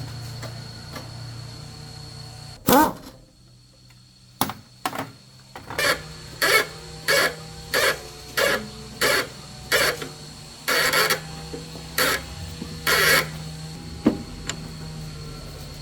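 Hammer blows on metal, a regular series of about a dozen strikes roughly every half second to two-thirds of a second, each with a short metallic ring. A single sharp knock or scrape comes about three seconds in, before the series.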